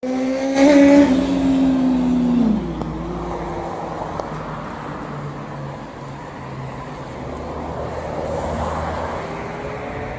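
A motor vehicle's engine hums steadily and loudly for about two and a half seconds, then drops in pitch and fades. Traffic noise follows, with a car passing by about eight to nine seconds in.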